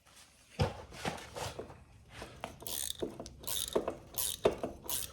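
Irregular metallic clicks and clanks of a chain break tool and a broken motorcycle drive chain being worked and handled, starting about half a second in.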